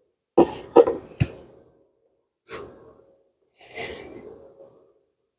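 Arc welder striking several short tack welds on the steel kickstand and frame: five brief bursts of crackling hiss, three in quick succession, then one alone and a longer last one.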